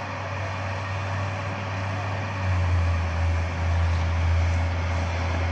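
Leopard 1 tank's MTU V10 multi-fuel diesel engine running with a deep, steady hum, growing louder about two and a half seconds in as it is revved up.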